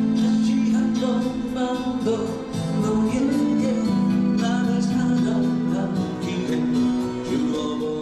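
Background music: a song with guitar and singing over a steady beat.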